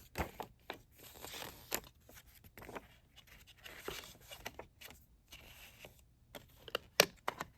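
Paper rustling as a small CD lyrics booklet is leafed through and handled, in short irregular rustles with a couple of sharp taps near the end.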